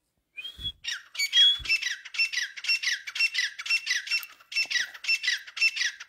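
Caged francolin (teetar) calling: a fast run of sharp, downward-sliding notes, about four a second, starting about half a second in.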